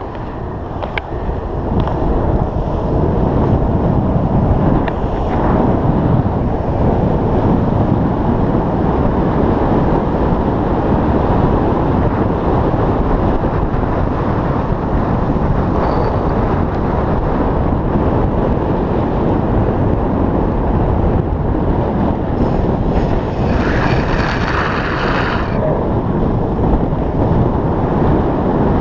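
Wind rushing over the microphone of a downhill longboarder's camera, mixed with the longboard's wheels rolling on asphalt. It gets louder over the first few seconds as speed builds, then holds steady. A brighter hiss lasts about two seconds near the end.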